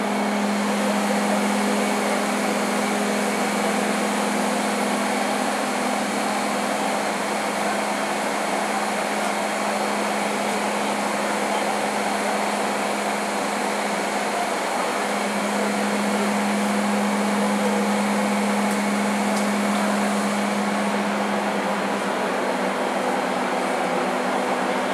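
Steady whirring hum of a stationary Siemens C651 metro train's air-conditioning and auxiliary equipment heard from the platform, with a low drone under it that grows stronger about fifteen seconds in and eases again near the end.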